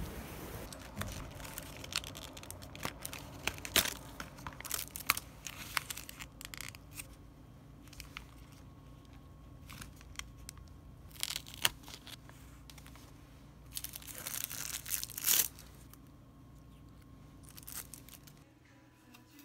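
Thin plastic film seal being peeled off a plastic takeaway tub, crinkling and tearing in short crackly bursts; the seal is stuck on very firmly. The longest, loudest tear comes about three-quarters of the way through.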